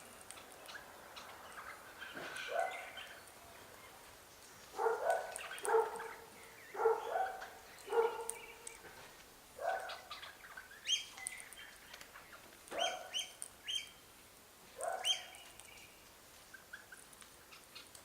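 Birds at a feeder calling: about a dozen short, pitched calls, each rising at the start, coming in clusters, with higher short chirps mixed in about two-thirds of the way through.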